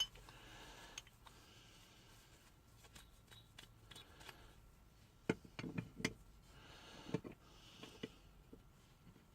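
Light clicks and small knocks of a cast-metal block plane's parts being handled and fitted together during reassembly, with a few sharper knocks between about five and seven seconds in.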